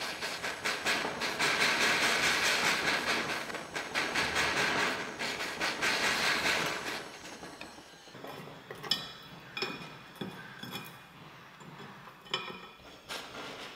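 Jeweller's soldering torch flame hissing with a fast flutter as it heats the joint of a gold ring to flow the solder. It dies away after about seven seconds, followed by a few light metallic clicks and taps of tweezers and tools on the soldering block.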